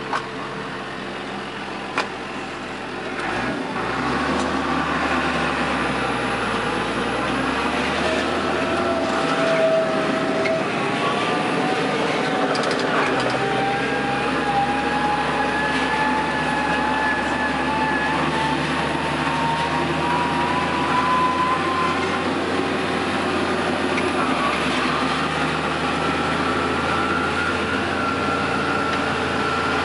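Case CS 130 tractor running, heard from inside its cab. The engine revs up about four seconds in as the tractor pulls away, then a whine climbs slowly in pitch as it gathers speed, with a change in the note about three-quarters of the way through.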